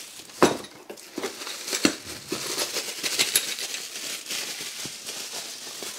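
Bubble wrap and plastic bags crinkling as the wrapped parts of a cable pulley kit are handled, with irregular crackles and a few sharper clicks.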